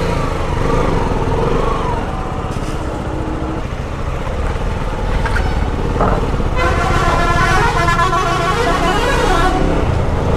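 Motorcycle engine running with road noise while riding in traffic. In the second half a vehicle horn sounds for about three seconds.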